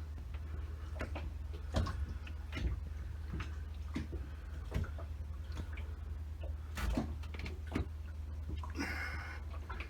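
Irregular clicks and knocks of tools and metal parts being handled, over a steady low hum, with a short scraping swish near the end.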